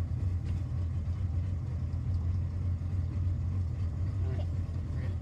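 Steady low rumble without break, with a faint hiss above it.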